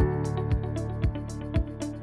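Background music with a steady beat, about two beats a second, over held chords.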